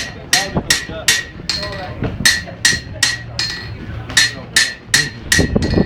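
A hammer striking metal in a steady rhythm, about three blows a second, each blow ringing briefly.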